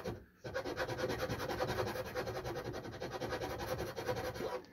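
Small hand file rasping back and forth in the edge of a round hole in a laminated cabinet panel, enlarging it to fit a 12 V socket. The strokes are rapid and even and begin after a brief pause at the start.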